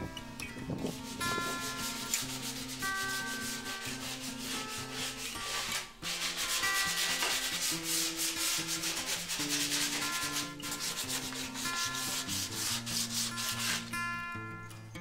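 Rapid back-and-forth rubbing strokes on a sideboard's flat board panel, like hand sanding, starting about a second in with a short break midway. Soft background music plays underneath.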